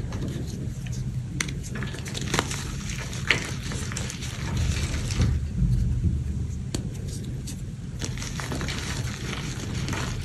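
Glitter-coated gym chalk blocks being crushed and crumbled by hand: continuous gritty crunching with many scattered sharp cracks as pieces break and powder is squeezed between the fingers.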